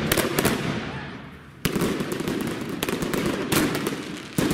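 Consumer ground fireworks going off: a fountain spraying sparks with a continuous hiss, cut through by several sharp bangs spread across the few seconds.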